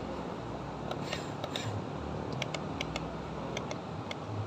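Toy RC excavator's small electric gear motors whirring as the arm moves, with several short runs of sharp plastic gear clicks.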